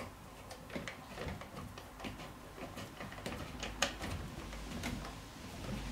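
Hex key turning a cap head screw into a chair frame, giving soft, irregular small clicks and scrapes as the key catches and turns in the screw head, one slightly louder click just before four seconds in.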